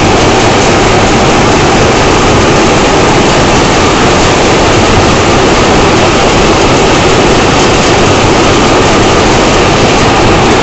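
High-speed rapier jacquard loom running at full speed while it weaves, a loud, steady mechanical noise.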